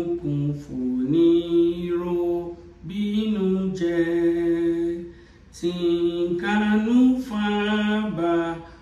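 A woman singing a Yoruba hymn unaccompanied, in slow phrases of long held notes, breaking off briefly twice to breathe.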